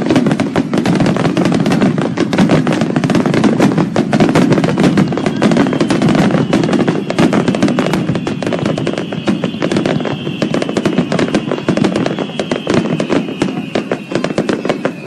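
Fireworks going off in a dense, rapid crackle of many small bangs, easing a little near the end. A faint high whistle slowly falls in pitch from about five seconds in.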